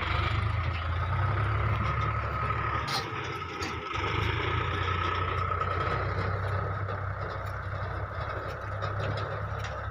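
Mahindra tractor's diesel engine idling steadily, with a few light knocks about three seconds in.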